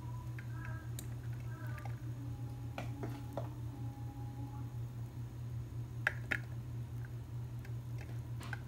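A few light clicks and taps of a spoon against a ceramic plate as fried rice is scooped, the loudest pair about six seconds in and another near the end, over a steady low hum.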